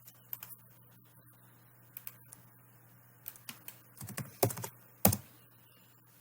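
Scattered clicks of a computer keyboard and mouse being worked, with a louder run of clicks and knocks about four to five seconds in, over a faint low steady hum.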